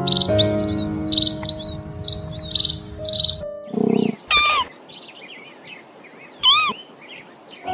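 Bird calls: a short high chirp repeated about five times over background music, then, once the music stops, two louder calls about two seconds apart, each with a pitch that wavers up and down.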